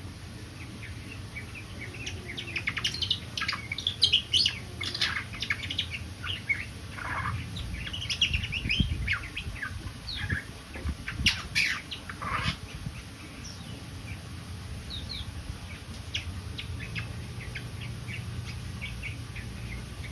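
A bird chirping and calling in quick, irregular runs of short high notes, with a few longer calls that sweep downward in pitch; the calls are busiest in the first half and thin out near the end, over a steady low hum.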